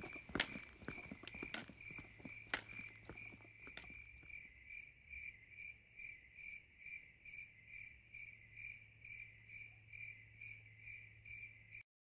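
Crickets chirping at night in a steady rhythm, about two chirps a second. Footsteps and trekking-pole taps click in the first few seconds, and the sound cuts off suddenly near the end.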